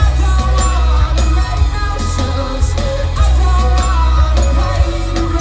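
Live rock band playing loud: a man singing over electric guitar and drums, with a heavy low end.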